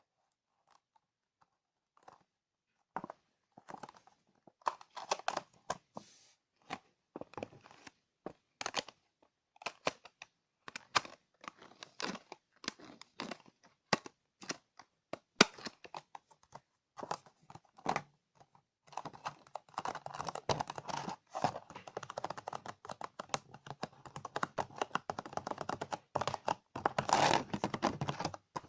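ASMR tapping close to the microphone: scattered sharp taps and clicks at an irregular pace, which about two-thirds of the way in turn into rapid, dense tapping mixed with scratchy, crinkly rustling.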